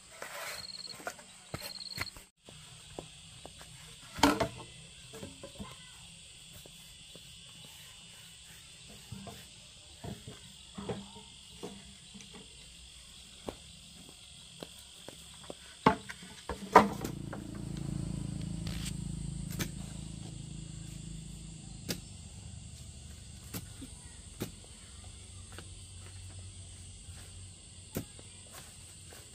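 Scattered knocks and thuds of bamboo poles being handled and pushed into the ground, the loudest a few sharp knocks, over a steady high chirring of insects. A low rumble rises for a few seconds just after the middle.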